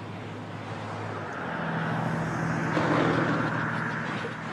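Beechcraft Baron 58's twin piston engines running as it rolls out on its main wheels, joined by a loud rushing scrape that builds and peaks about three seconds in as the nose, with no nosewheel down, comes down and slides along the runway.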